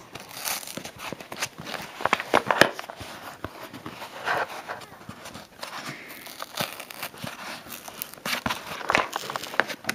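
Corrugated cardboard mailer being torn open by hand: irregular tearing, ripping and scratching of the cardboard flap and tear strip, with short rustles and small clicks from handling the box.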